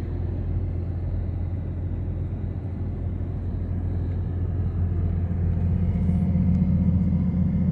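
Steady low rumble of a vehicle driving along a road, heard from inside the cab: engine and road noise. It grows a little louder about five seconds in.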